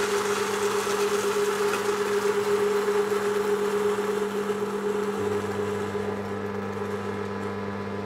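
Electric conical-burr espresso grinder running steadily, grinding out the last beans left in the burrs. A little past halfway its hum shifts lower and the sound slowly grows quieter, the change that tells the burrs are running empty.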